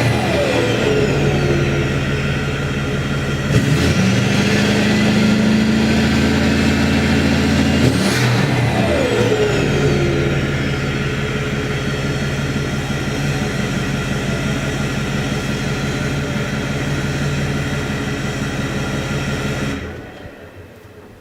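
Ford 6.4L Powerstroke V8 diesel running through a 5-inch straight-through dual exhaust with no muffler, idling with two short revs, each trailed by a falling whistle. The sound cuts off near the end.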